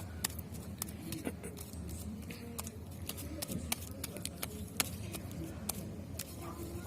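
Sticky homemade slime being kneaded and squeezed by hand, giving irregular small clicks and pops over a low steady hum.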